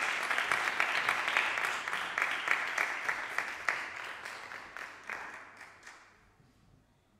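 Audience applauding, the clapping thinning out and dying away about six seconds in.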